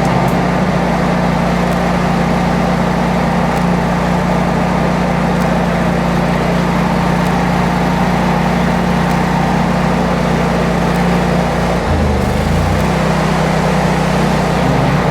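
Home standby generator engine running steadily under load, with a steady low hum. About twelve seconds in its tone briefly shifts and then settles again, the engine responding as an electrical load comes on.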